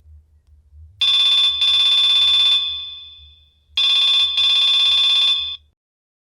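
Nokia 3220 ringtone imitating an old telephone's double ring: two buzzy rings, each made of two quick bursts. The first starts about a second in and rings out briefly; the second cuts off sharply near the end.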